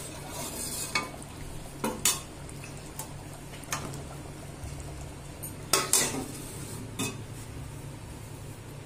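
A metal spoon stirring in a cooking pot and clinking against its side, about eight sharp clinks spread irregularly over several seconds.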